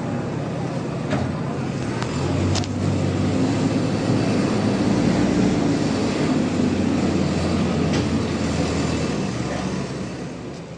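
A steady mechanical rumble with a low hum, swelling about two seconds in and fading away near the end, with a few faint clicks.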